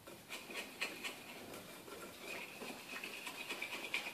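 Wire whisk beating icing sugar and orange juice into a glaze in a ceramic bowl, the wires scraping and clicking against the bowl in quick, rhythmic strokes.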